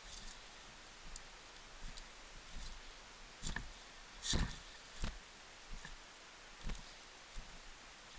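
Footsteps on dry fallen leaves and rocky ground, about one step every three-quarters of a second, with a louder step about halfway through.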